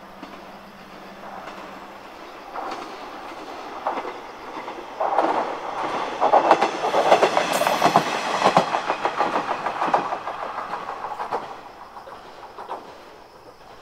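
JR West KiHa 120 diesel railcar running past, its wheels clacking over the rail joints. It grows louder over the first few seconds, is loudest around the middle, and fades away near the end.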